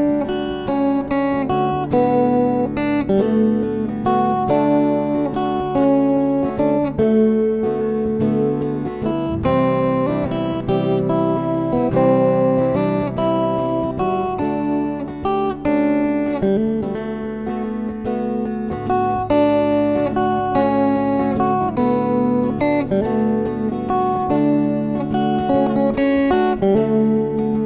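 Acoustic guitar playing a song accompaniment, picked notes mixed with strummed chords.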